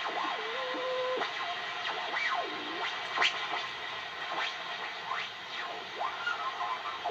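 Trio 9R-59 shortwave tube receiver being tuned across a band: whistling tones slide up and down in pitch over a steady static hiss as the dial passes stations.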